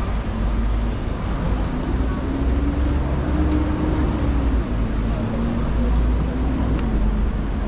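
City street traffic: a steady low rumble with one vehicle's engine note rising and then falling as it passes.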